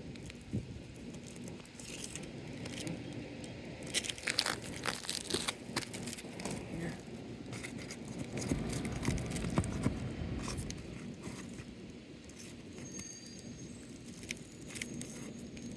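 Asphalt roof shingles being pried loose: scattered scraping, crackling and clicking as the sealed tabs and nails are worked free, busiest about four to six seconds in, over a low rumble.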